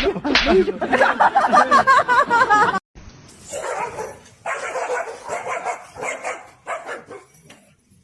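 A dog making high, wavering vocal sounds, then barking and yipping in a run of short bursts that fade toward the end.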